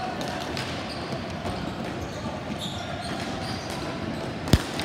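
Ball hockey play on an indoor sport court: sticks and the ball clattering with scattered light knocks, and one loud sharp crack about four and a half seconds in, the loudest sound.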